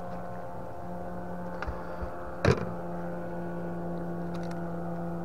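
Boat motor running at a steady, even hum. A single sharp knock about halfway through, with a few faint ticks around it.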